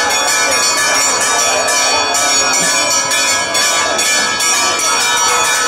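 Church bells ringing a rapid, continuous peal, struck about twice a second, with a crowd's voices faintly underneath.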